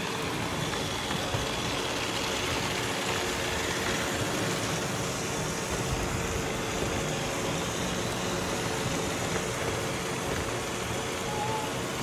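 Several robot vacuums, iRobot Roombas, a Shark and a Eufy, running together: a steady whir of suction fans and brushes with a steady hum.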